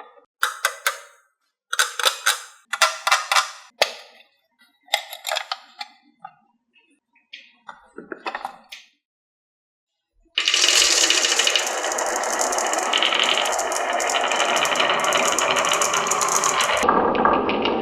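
Glass marbles rolling and clattering down a HABA wooden marble track in short bursts of clicks and rattles. About ten seconds in, a dense continuous clatter starts and runs on.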